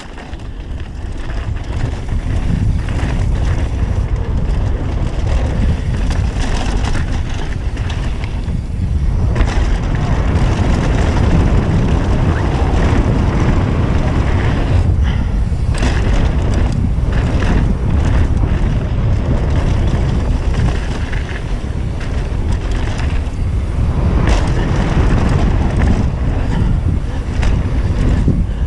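Mountain bike descending a dry dirt and gravel trail at speed: wind rushing over the microphone, with tyres rolling on the dirt and the bike rattling over bumps in frequent sharp knocks.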